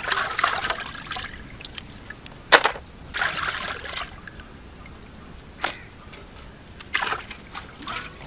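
Water splashing and dripping in an aluminium pot as live crabs are lifted out of it by hand, with a few sharp knocks of shell in between. Right at the end the water starts pouring out of the tipped pot.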